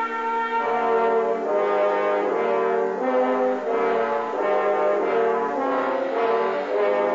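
Orchestral film score with brass, likely trombones and horns, playing a series of held chords.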